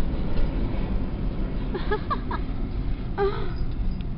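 Steady low rumble of a car's engine and tyres heard from inside the cabin while driving. A couple of brief, soft vocal sounds come about two seconds in and again a little after three seconds.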